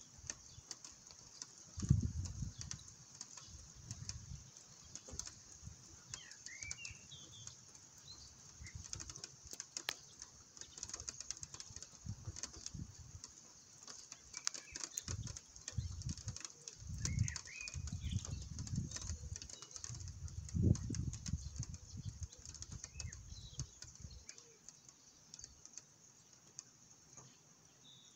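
Stormy outdoor ambience: a steady high hiss with irregular low rumbles coming and going, and birds chirping briefly now and then.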